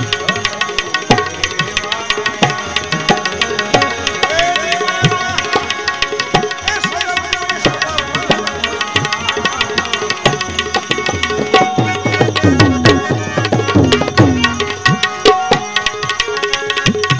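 Tabla drumming with a Geetanjali harmonium holding steady chords, in a fast, even rhythm of strokes. Between about twelve and fifteen seconds in, the bass drum's strokes slide up and down in pitch.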